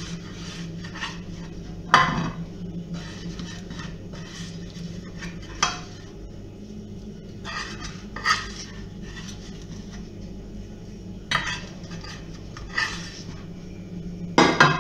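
Kitchen utensils knocking and clinking against dishes and a baking tray in scattered single strokes, the loudest about two seconds in, over a steady low hum.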